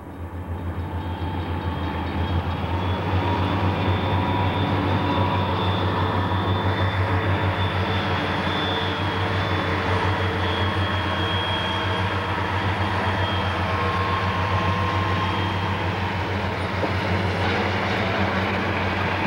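Southern Pacific diesel freight locomotives passing close by: a steady low engine drone with a thin high whine over it. The freight cars then roll past.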